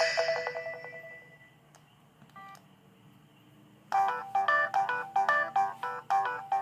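ZTE Z222 mobile phone ringtones: one ringtone's last notes fade out over the first second or so, a short beep sounds in the pause, and about four seconds in a new ringtone starts, a quick repeating melody of bright electronic notes.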